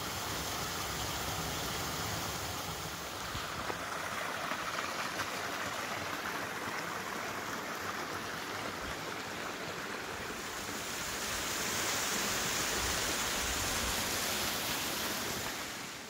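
Creek water running and splashing over rocks in a steady rush, getting a little louder and brighter near the end.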